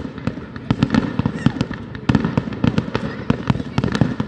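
Aerial firework shells bursting in a fireworks display: a rapid, uneven run of sharp bangs, several a second.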